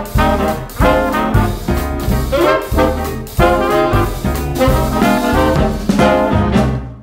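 Upbeat jazzy background music with brass, with a steady beat, fading out near the end.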